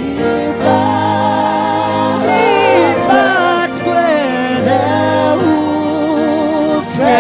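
Gospel worship singing in Shona over music: voices hold long notes with vibrato between the lines of a repeated phrase.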